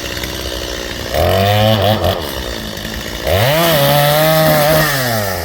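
Chainsaw idling, then revved up twice as it cuts limbs from a felled pine. The first burst, about a second in, lasts about a second. The longer one starts about three seconds in, holds at full speed for nearly two seconds, then falls back to idle.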